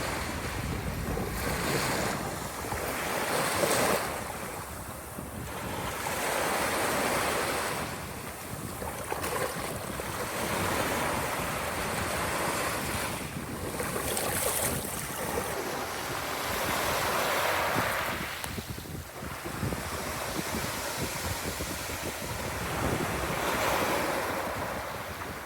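Baltic Sea waves washing in, surging and falling back every few seconds, with some wind buffeting the microphone.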